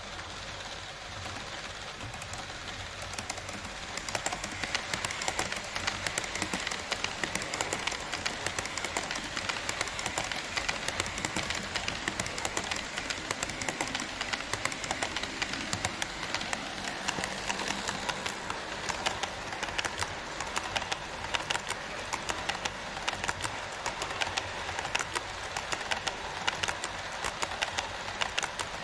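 HO scale model train running on Kato Unitrack, its wheels rolling with a steady rush and rapid clicking over the rail joints. The running noise and clicks grow louder about four seconds in.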